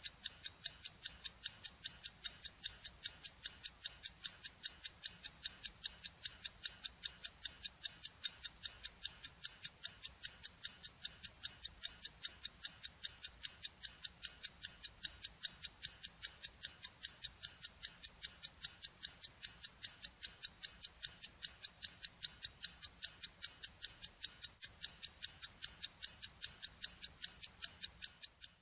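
Steady, even ticking, about three sharp, bright ticks a second, like a clock.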